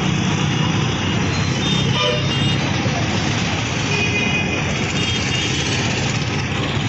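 Slow, dense road traffic of auto-rickshaws, motorbikes and cars: engines running steadily, with short horn toots a few times.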